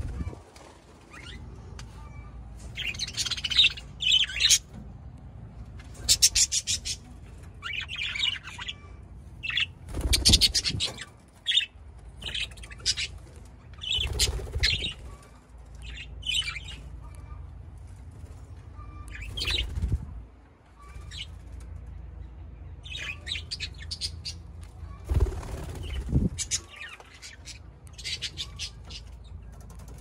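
A flock of budgerigars chattering and chirping in short bursts, with wingbeats as birds fly about. Several low rumbling swells come and go.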